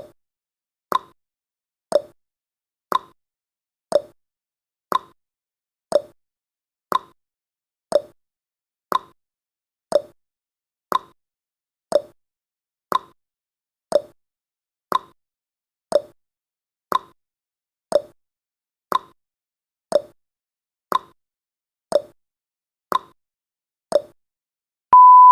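Clock-style tick-tock sound effect of a countdown timer: one short tick every second, alternating between a higher and a lower tick. Near the end a steady electronic beep starts as the countdown reaches zero.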